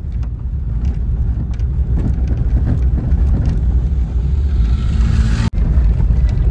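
Road and wind noise of a moving car: a steady low rumble with a hiss that builds near the end, broken by a momentary dropout about five and a half seconds in.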